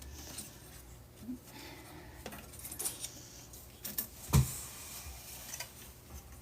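Light metallic clinking and clattering from a Dell server's parts being handled as a riser card is worked out, with one sharp knock a little over four seconds in.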